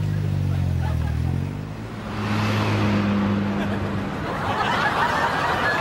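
Road traffic: car engines running and passing by with a low, steady hum. A wider wash of background noise comes in during the second half.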